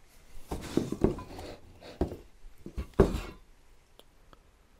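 Packaging being handled in a cardboard box as small parts are taken out: a rustle and then a few sharp knocks, the loudest about three seconds in.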